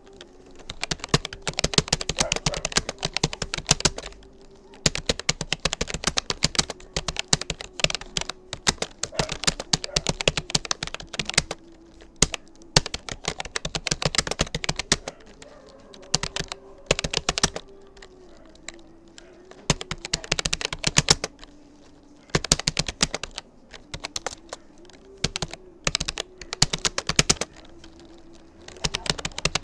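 Typing on a Rapoo computer keyboard: quick runs of keystroke clicks broken by short pauses.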